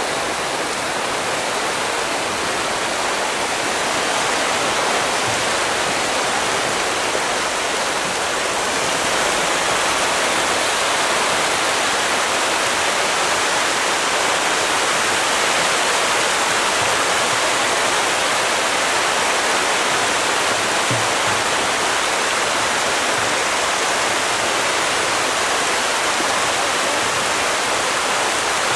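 A huge shoal of striped catfish (pangasius) thrashing at a pond surface in a feeding frenzy: a steady rush of splashing water that grows a little louder a few seconds in.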